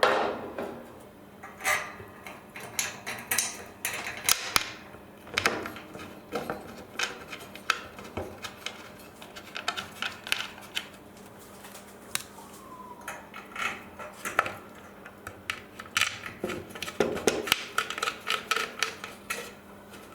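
Irregular metal clinks and knocks as bolts are handled and driven into a steel-framed furniture panel with an Allen key, with clusters of quick taps and a brief squeak about halfway through.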